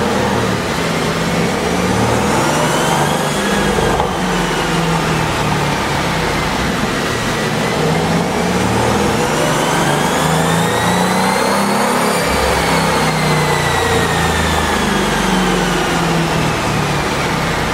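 Mercedes-AMG C63's twin-turbo V8 run on a chassis dyno: a short climb in revs with a rising whine that falls away, then a second, longer climb to a higher pitch that falls back down near the end.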